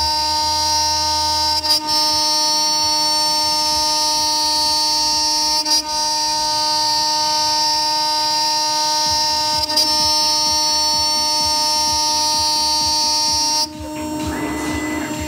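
2.2 kW CNC router spindle milling aluminium plate with a small end mill: a steady high whine made of several held tones, briefly broken three times. Near the end the high whine drops out and gives way to a quieter, rougher rattle.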